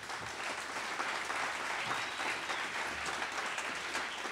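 Audience applauding: many hands clapping at once in a steady wash.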